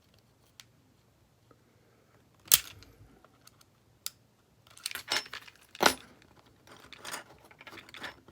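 Small hard parts and tools clicking and clattering as a phone is worked on during disassembly. There are two sharper knocks, about two and a half and six seconds in, with lighter clicks between them in the later half.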